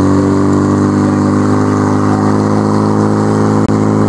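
Portable fire pump engine running steadily at high revs.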